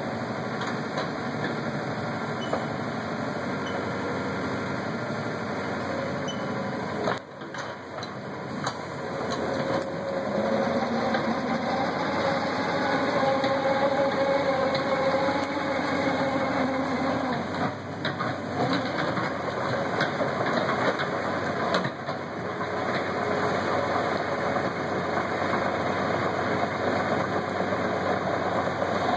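Komatsu PC75UU-2 mini excavator's diesel engine running as the machine digs and moves, with scattered clanks. The engine note drops briefly about seven seconds in, then runs louder from about ten seconds on, with a tone that wavers up and down.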